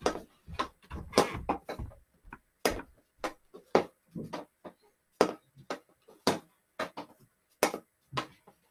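Hockey stick blade knocking a stickhandling ball back and forth on carpet: sharp clacks at an uneven pace of about two a second, some in quick pairs.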